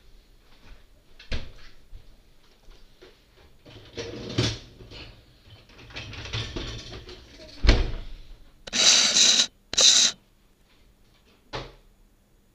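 Knocks, rustling and rubbing as the camera is grabbed and moved, with a sharp thump just before the middle and two loud scraping bursts soon after.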